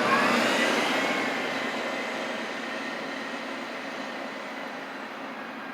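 A passing train running by, loudest at the start and slowly fading, with a thin high whine over the rumble.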